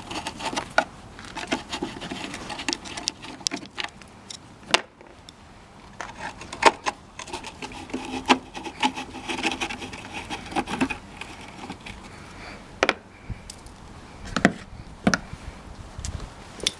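Hands working a car tail-light housing loose: irregular plastic clicks and knocks with rubbing and scraping in between.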